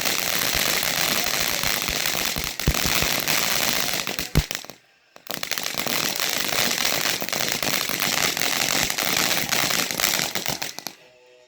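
Consumer ground firework crackling: a dense rapid crackle of many small snaps and pops. It breaks off for about half a second around five seconds in, resumes, and dies away near the end.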